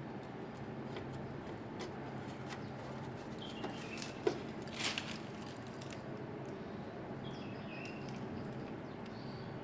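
A steady low hum, with two sharp clicks about four to five seconds in and a few short, high chirps that fall slightly in pitch.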